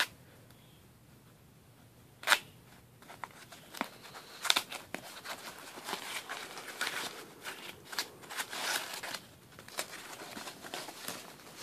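Foam packing sheet being unwrapped by hand from a car part, crinkling and rustling in quick irregular strokes. A single sharp click comes about two seconds in, and the rustling starts soon after.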